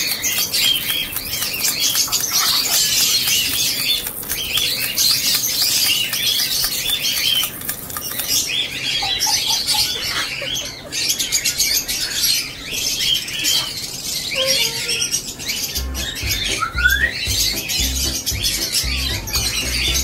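A flock of small caged parrots chattering, with many rapid, overlapping high chirps and squeaks. A low musical beat joins in near the end.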